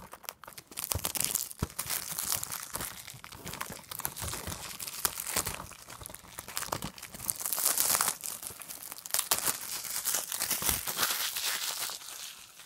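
Plastic shrink-wrap being torn and peeled off a Blu-ray case, a continuous crinkling and crackling that is loudest about eight seconds in.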